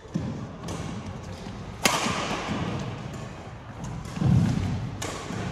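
A badminton doubles rally: sharp cracks of rackets hitting the shuttlecock, the loudest just under two seconds in, ringing in a large hall. About four seconds in comes a heavy low thud, the loudest sound, as a player dives onto the court.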